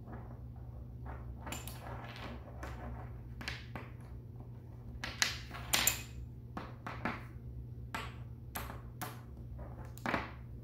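Magnetic building sticks snapping onto steel connector balls, with light taps on a wooden tabletop: a string of short, irregular clicks, the two loudest about five to six seconds in.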